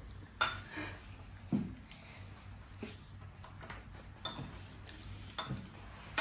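Cutlery clinking against a bowl while eating noodles, a sharp clink about every second, some with a short high ring.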